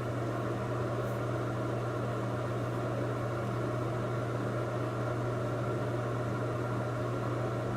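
A steady low hum with an even faint hiss, unchanging throughout.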